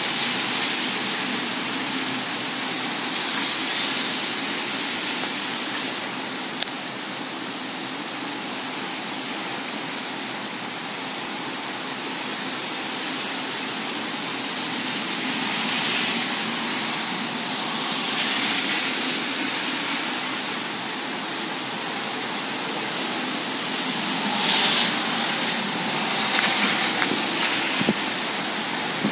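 Heavy thunderstorm rain pouring down in a steady hiss that swells louder now and then, most strongly near the end.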